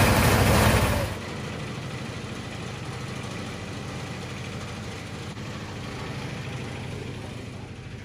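Engine-driven paddy thresher running steadily with a rapid low pulse, loud up close for about the first second, then much fainter and distant for the rest.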